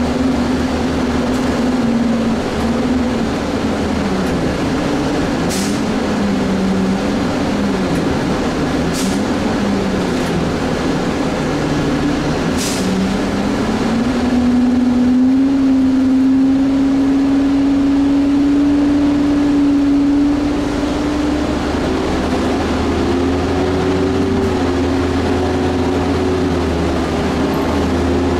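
Nova city bus heard from inside the cabin while driving: a steady engine and drivetrain drone that dips and recovers in pitch, then holds higher and steps up again about two-thirds of the way through, over road noise. A few sharp clicks or rattles come in the first half.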